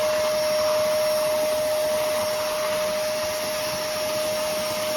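Hoover Commercial PortaPower canister vacuum running steadily: a constant motor whine over the rush of air through the hose and floor tool.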